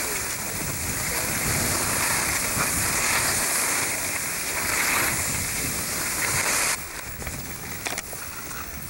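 Steady rushing noise of sliding over packed snow, with wind buffeting the camcorder microphone. It cuts off suddenly about seven seconds in.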